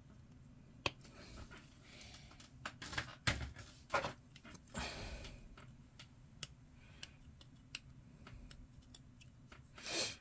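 Hobby sprue cutters snipping small plastic model parts off a plastic sprue: a series of quiet, sharp clicks with soft handling and scraping noises between them, and a short rushing sound near the end.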